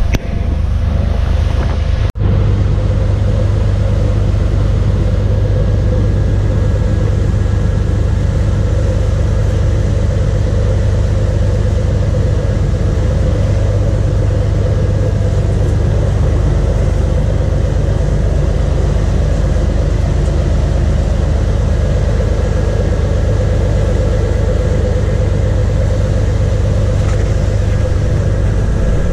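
Sportfishing boat's engines running steadily under way, a loud low drone mixed with the rush of water from the wake. The sound cuts out for an instant about two seconds in.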